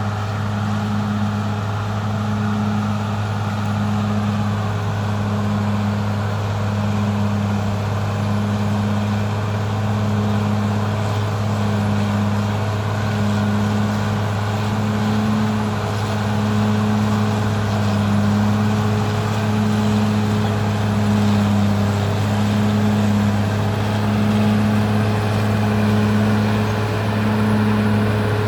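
Caterpillar D6R XL bulldozer's diesel engine running steadily under work, a low hum with a pulsing throb about once a second.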